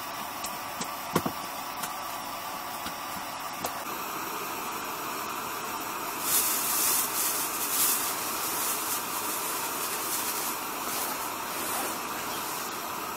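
Steady hiss of a portable gas burner running under a kettle. A sharp click comes about a second in, and a louder rustling rush comes about six seconds in and again near the end.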